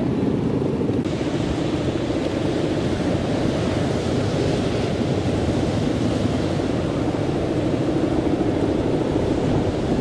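Strong wind rushing over the microphone with a steady, rough low drone beneath it; about a second in, more hiss joins it.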